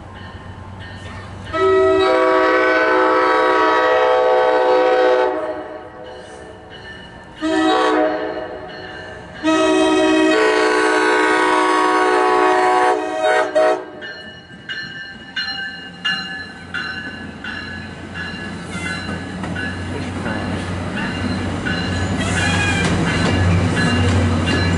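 MARC commuter train horn sounding for a grade crossing: a long blast, a short one, then another long blast that ends in two quick toots. Then the train rolls through, its rumble growing louder, over the steady dinging of the level-crossing bell.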